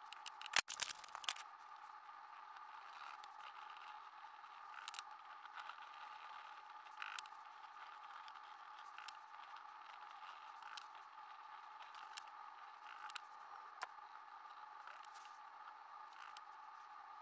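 Faint scraping and scratching as a needle-point scribe is drawn across the design on a steel axe head, with scattered sharp ticks, the loudest cluster about a second in. A steady faint hum runs underneath.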